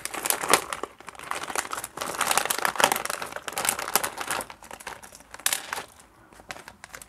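Holographic foil pouch crinkling and crackling as hands open it and pull out the sample sachets inside. The crackle thins out near the end.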